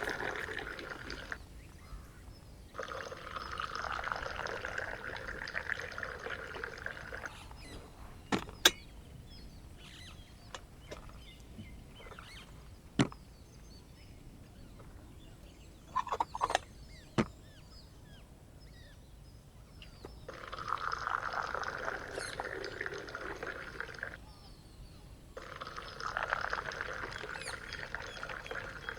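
Tea being poured from a teapot into glasses in four separate pours, each a few seconds long with short pauses between, as is done for Moroccan tea. A few sharp clinks sound in the quiet stretch between the second and third pours.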